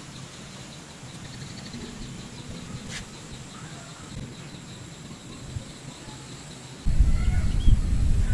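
Quiet outdoor ambience with a faint steady insect-like tone and a few soft bird chirps. About seven seconds in, a loud low rumble starts as the camera is picked up and swung toward the water.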